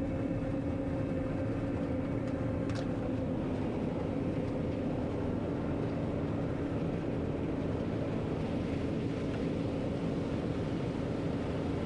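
John Deere 9500 combine running steadily while harvesting corn, heard from inside the cab: an even engine and threshing drone with a steady hum.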